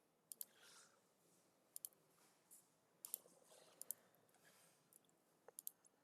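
Faint computer mouse clicks: five quick pairs spread across a few seconds, the two clicks in each pair about a tenth of a second apart.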